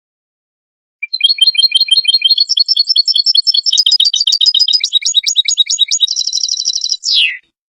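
European goldfinch singing: about six seconds of rapid twittering notes, ending in a buzzy trill and one falling note. The song starts about a second in and cuts off suddenly near the end.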